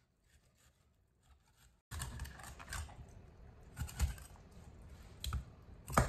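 Silent for the first two seconds, then a cleaver working a grass carp on a wooden chopping block: light scraping and scattered taps, with a louder knock about four seconds in and another near the end.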